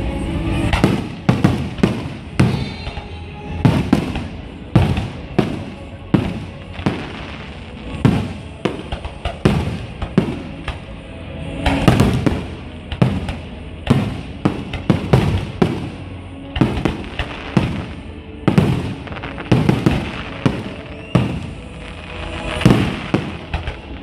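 Aerial fireworks shells bursting in a continuous display: a dense, irregular run of sharp bangs, often several in a second.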